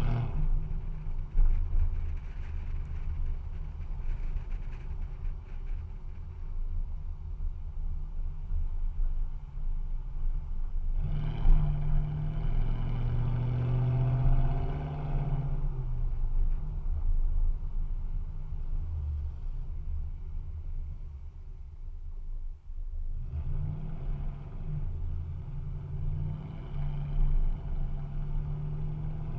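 A 2014 Toyota Tundra's 4.6-litre V8 running through a stainless-steel straight-pipe exhaust that replaces the stock muffler, as the truck drives slowly. The exhaust note grows louder and rises in pitch twice under acceleration, about eleven seconds in and again about twenty-three seconds in.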